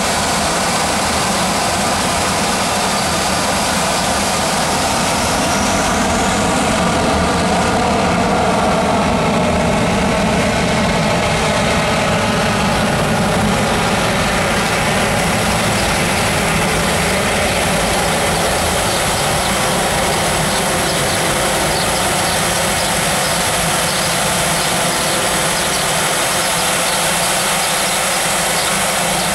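Airbus A320 jet engines at takeoff power during the takeoff roll: a loud, steady rushing noise, with a whine that slides up and down in pitch between about five and twelve seconds in.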